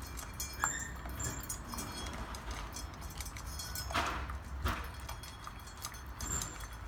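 Shiba Inu eating from its bowl: small clicks and clinks of food and bowl, with two louder short scraping crunches about four seconds in.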